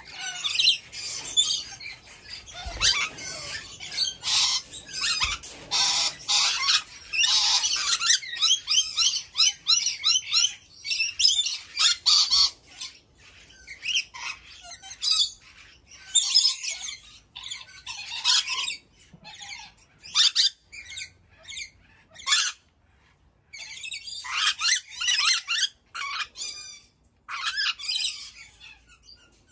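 Ornate lories giving harsh, high-pitched screeching squawks. The calls come thick and nearly continuous for the first eight seconds or so, then break into shorter bursts of chattering screeches with brief pauses between them.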